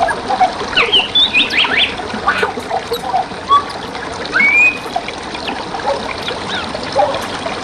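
Forest stream water running steadily, with wild birds chirping and whistling short calls over it.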